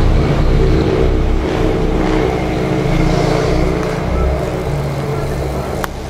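Steady outdoor background noise: a low rumble that swells and fades under a hiss, with a single click near the end.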